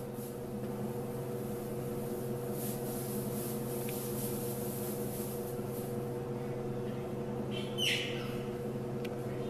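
Steady mechanical hum holding several fixed pitches, with a short, high, wavering squeal about eight seconds in, a jaguar cub calling.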